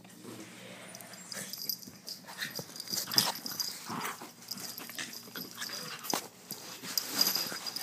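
A Frenchton and a rat terrier play-fighting: breathy dog noises and scuffling in irregular bursts, loudest about three seconds in.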